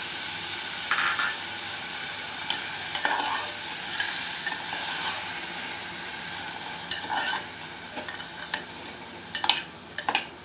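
Chopped vegetables sizzling in a little hot oil in a pressure cooker pot, the sizzle slowly dying down, while a metal spoon stirs them and scrapes and knocks against the pot several times, most often near the end.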